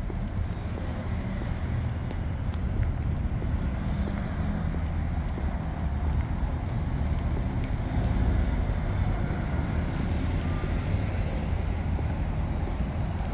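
City street traffic: cars driving past at an intersection over a steady low rumble.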